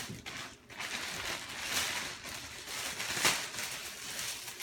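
Clear plastic bag crinkling and rustling as a football wrapped in it is handled and pulled out, with a few sharper crackles.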